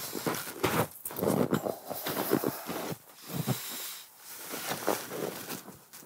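Snow crunching underfoot and clothing rustling in irregular bursts as a person shifts position and steps back over packed snow.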